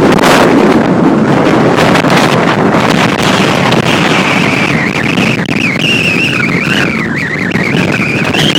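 Strong post-typhoon wind buffeting the microphone in a loud, rushing roar, with a high wavering whistle of the wind joining about halfway through.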